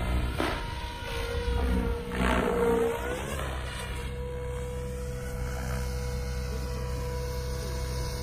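SAB Goblin Black Thunder electric RC helicopter in flight: a steady high-pitched motor and gear whine with rotor blade swish. It swells louder twice in the first three seconds, then runs steadily.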